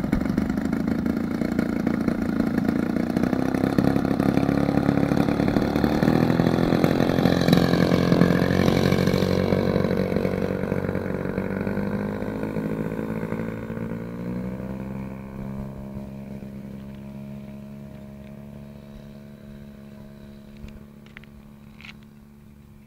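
Radio-controlled model airplane's engine running at takeoff power. It grows louder and drops in pitch as the plane passes by, about seven to nine seconds in, then fades steadily as the plane climbs away.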